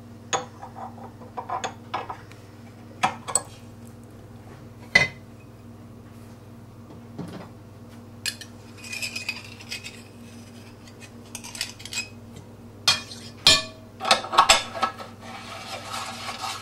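Metal clinks, clanks and scraping of a meat grinder's steel head parts (locking ring, cutting plate and cross knife) being unscrewed, handled and set down while the plate is swapped for the coarse screen. Single sharp clinks every second or two, then a busier run of clatter and scraping near the end, over a steady low hum.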